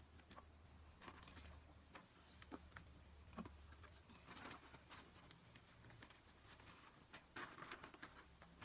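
Faint rustling and pattering of potting mix scooped by hand from its plastic bag and dropped into small plastic pots, in a few brief scuffs about a second in, midway and near the end, with scattered light clicks between.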